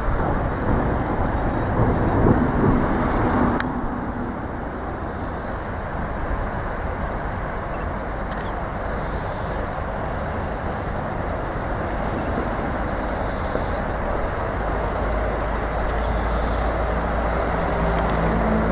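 Steady low rushing background noise, with a thin high chirp that slides down in pitch and repeats about once a second.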